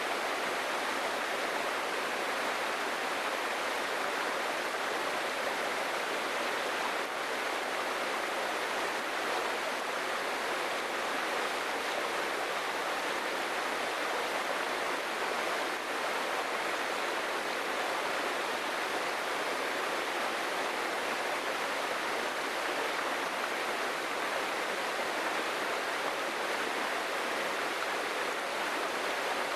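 Jungle waterfall and its stream: water falling and rushing over rocks in a steady, unbroken hiss.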